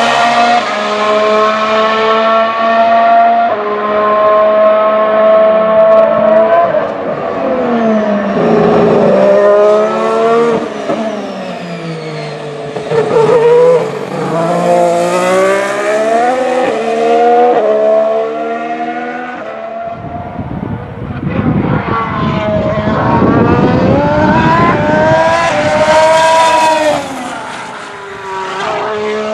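Formula 1 cars' 1.6-litre V6 turbo hybrid engines running on track, their pitch climbing through the gears and dropping on downshifts as the cars pass. A louder, rougher stretch comes about two-thirds of the way through.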